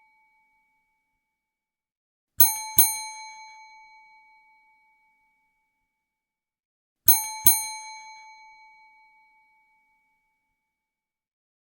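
Desk service bell struck sharply twice in quick succession, a bright ding-ding that rings on and fades over a couple of seconds. About five seconds later it is struck twice again.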